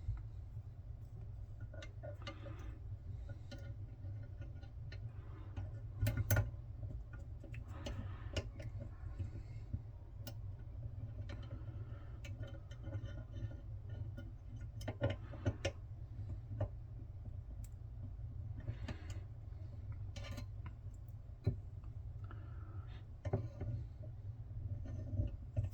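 Scattered small metal clicks and short scrapes of a lock pin and a thin brass follower being worked into a padlock cylinder, irregularly spaced, over a steady low hum.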